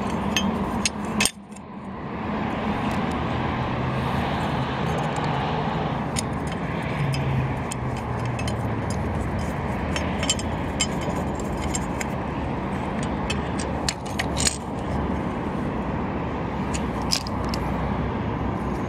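Steady road traffic noise from passing cars, with scattered small metallic clicks and scrapes as the wiper motor and linkage are handled.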